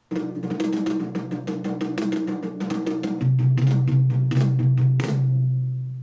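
Canton Karat 100 three-way sealed speakers playing a percussion track: a fast run of drum hits starts suddenly, a deep steady bass note enters about three seconds in, and after a couple of strong hits near the end the sound fades away.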